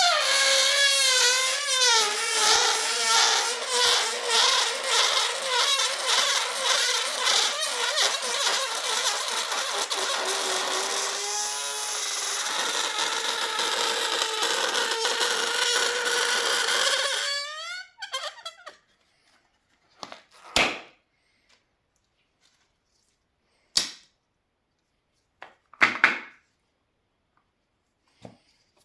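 Air escaping from a balloon through its stretched neck: a long, wavering squeal over a hiss that rises in pitch just before it stops, about seventeen seconds in. A few short sounds follow.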